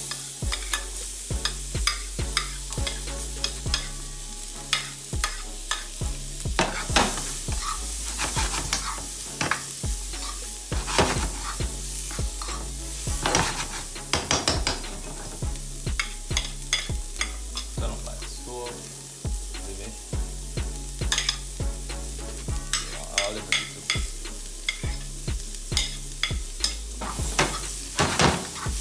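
Sliced onion and sweet peppers sizzling in hot coconut oil and curry powder in a nonstick frying pan, stirred with a spoon that clicks and scrapes against the pan again and again.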